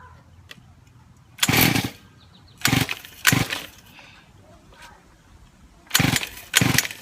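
Small pocket-bike engine being cranked on its recoil pull starter, five short yanks in two groups, each one a brief burst that dies away at once: the engine is not catching and won't start.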